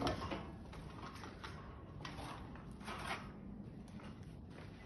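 Faint scuffs and scrapes from a plasterer working and stepping on a scaffold plank: a few soft scraping strokes, one at the start and two about two and three seconds in, over steady background noise.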